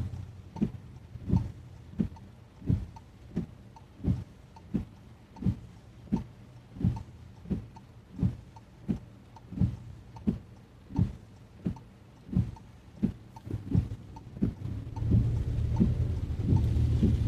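Car windshield wipers sweeping in the rain, a regular thump about every 0.7 seconds, over rain and road noise that grows louder about 15 seconds in.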